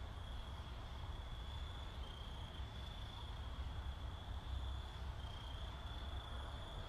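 A steady high-pitched tone that shifts slightly in pitch every second or two, over a low rumble.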